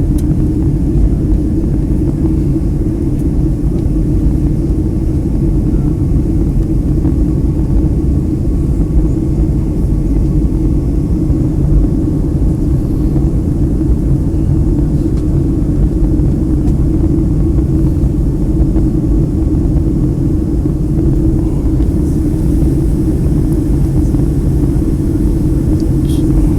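Boeing 757 cabin noise on the approach to landing: a steady low drone of the engines and airflow heard from inside the passenger cabin.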